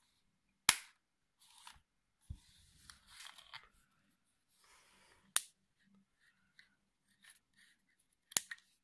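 Sharp plastic clicks and knocks from a hair straightener being handled, with soft rustling between them: a click under a second in, a duller knock a little after two seconds, another click past five seconds, and a quick double click near the end.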